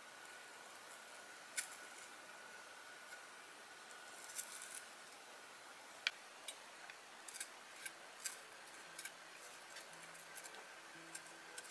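Kitchen knife blade carving raw white root vegetable into flower petals: faint, sparse crisp clicks and small scrapes as each shallow cut goes in, with a brief cluster of them about four seconds in. Faint music comes in near the end.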